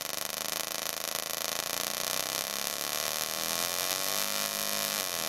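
Half-bridge solid-state Tesla coil firing sparks from its breakout point: a harsh, pitched buzz set by the interrupter pulse rate. In the second half the pitch glides up and down like a race car or motorbike as the pulse rate is varied.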